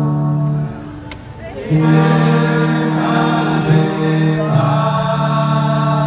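Brass band playing slow, long held chords, each sustained a few seconds, with a short drop in level about a second in.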